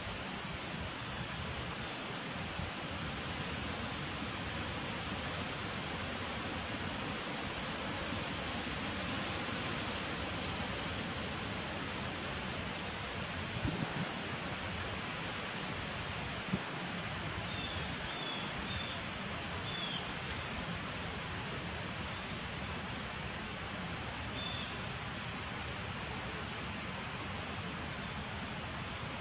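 Honeybees buzzing and flying at the entrance of a nuc hive, over a steady high-pitched insect drone.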